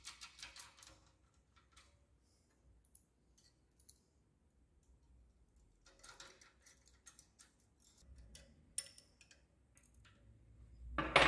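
Light metallic clicks and rattles from a steel pitman rod and its bolt-on clamp fitting being handled and adjusted by hand. They come in two short clusters, about the start and about six seconds in, with scattered single ticks between and a slightly louder tick near the end.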